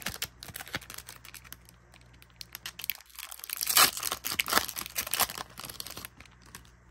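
Foil wrapper of a Pokémon booster pack crinkling in the hands, then torn open by hand with a burst of louder crackling about halfway through. Quieter rustling follows as the cards are pulled out.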